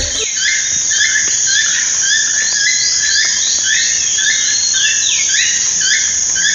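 Toucan calling: a long run of short, rising croaking notes, about three a second, over a steady high drone of crickets.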